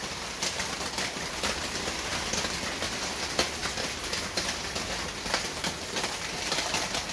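Steady rain: an even hiss with many sharp ticks of drops striking surfaces.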